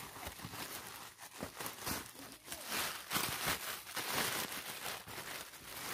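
Plastic sheeting and a woven plastic sack rustling and crinkling as they are pulled and worked by hand over a wrapped bundle, in uneven scratchy rustles.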